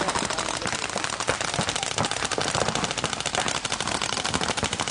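Several paintball markers firing rapid strings of shots at once, a dense and continuous popping with no let-up.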